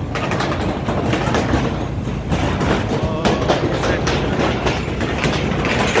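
A vehicle driving across a steel bridge: a steady rumble with continual rattling and clatter from the bridge deck and railings.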